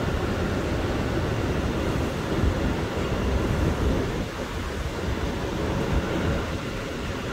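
Steady low rumble and hiss inside an R179 subway car standing at a station.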